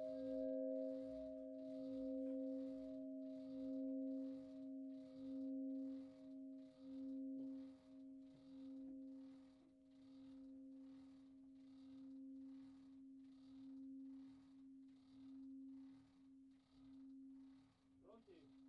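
The large bronze De Poli church bell, cast in 2002, is still swinging after its ringing has stopped, with no clapper strikes. Its lingering hum slowly fades, swelling and dipping with each swing.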